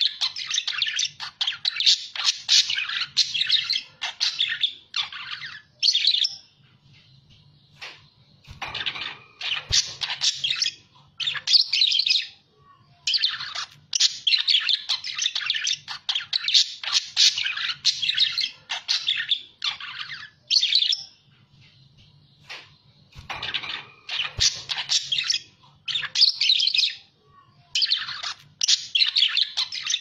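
Budgerigars chattering and warbling busily: dense runs of quick high chirps and squawks in bursts of several seconds, broken by short pauses twice.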